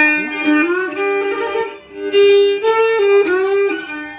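Kantrum folk music: a bowed fiddle playing a melody of held notes that slide from one pitch to the next, with a brief dip about two seconds in.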